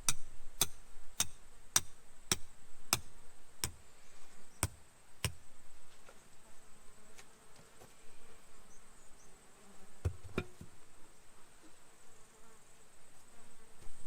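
Tent peg being hammered into the ground: nine even strikes, a little under two a second, then two more about ten seconds in. A steady high-pitched insect drone runs behind.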